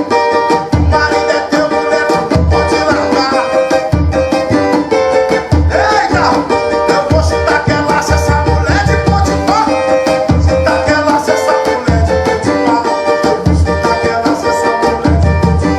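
Brazilian Pentecostal corinho rhythm played on cavaquinho and tantan: steady plucked-string chords over regular low drum beats.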